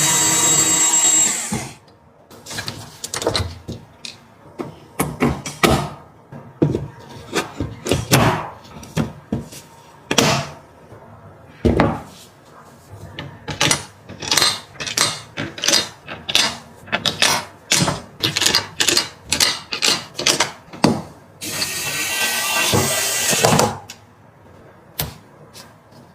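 A small electric screwdriver whirs briefly at the start and again for about two seconds near the end, driving screws into PC parts. In between, plastic and metal parts are fitted and handled, with many sharp clicks and taps.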